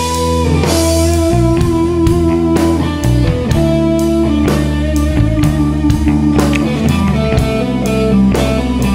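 Background rock music with electric guitar and a steady drum beat.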